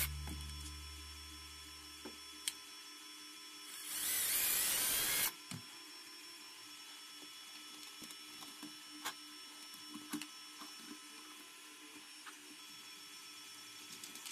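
Cordless drill driver whining for about a second, driving screws into a 3D printed plastic wheel hub. Afterwards come light clicks and taps of hand tools and small parts, over the faint steady hum of a 3D printer running.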